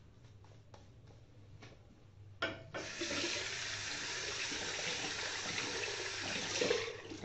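A few faint shaving-brush strokes, then a bathroom tap is turned on about two and a half seconds in and runs steadily into the sink for about four seconds before being shut off near the end.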